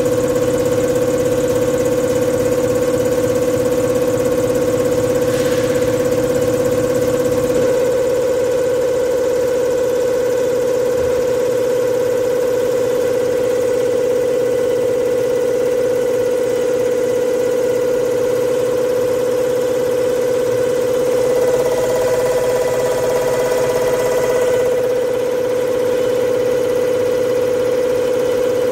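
NTS300 common rail injector test bench running, its motor and high-pressure pump giving a steady machine hum with a strong constant tone. About eight seconds in the low part of the sound drops away as the bench moves to the next test step at lower rail pressure, from 160 down to 100 MPa.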